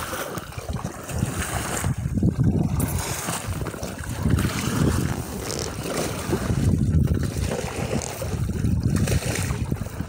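Wind buffeting the microphone in uneven gusts, with water washing against the hull of a small boat under way.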